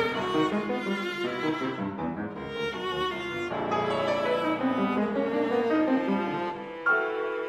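Viola and piano playing chamber music: the viola's bowed, sustained melody over the piano, with struck piano notes coming forward near the end.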